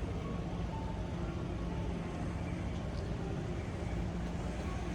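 Steady low rumbling hum of background machinery and ambient noise, with a faint held tone and no distinct events.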